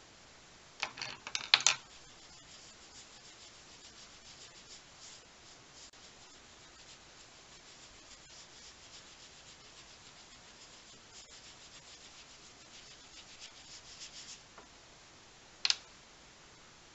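Derwent Inktense watercolour pencil scribbling on journal paper: a quick cluster of louder scratches about a second in, then light, repeated rubbing strokes, and one sharp click near the end.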